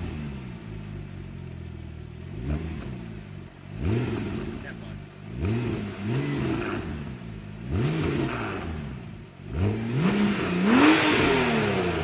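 Porsche 997 Turbo MKII's 3.8-litre twin-turbo flat-six, fitted with EVOX SuperSport stainless exhaust silencers, settling from a start-up flare into idle. It is then blipped about six times, each rev rising and dropping back to idle. The last two, near the end, go highest and loudest.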